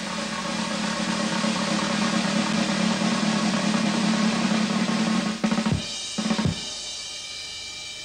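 Drum roll swelling in loudness, broken off about five and a half seconds in by a few sharp strokes, with a fainter ring lingering after them.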